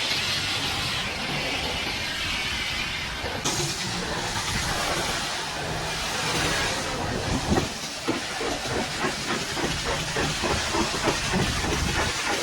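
High-pressure washer jet spraying against a truck's bodywork: a steady hiss of water. In the second half it takes on a quick, even pulsing.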